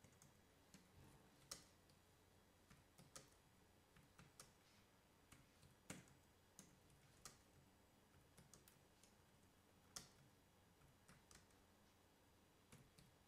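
Faint, irregular keystrokes on a computer keyboard as lines of code are typed, with a few sharper clicks standing out.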